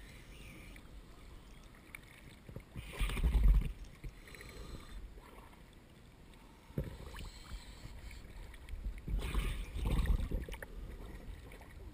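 Water sloshing and splashing around an action camera held at the water surface, with two louder rushes of water, about three seconds in and again around nine to ten seconds in, and a single knock near the middle.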